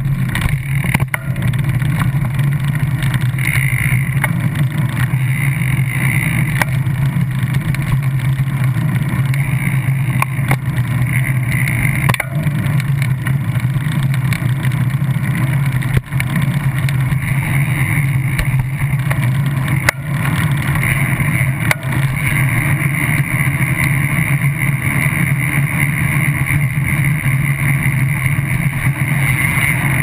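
Steady, unbroken rumble and hum of a moving vehicle, with a few faint clicks.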